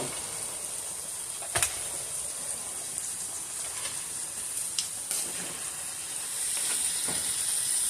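Cubed beef frying in butter in a pan over a high flame, a steady sizzle that grows a little louder near the end. A sharp click sounds about a second and a half in.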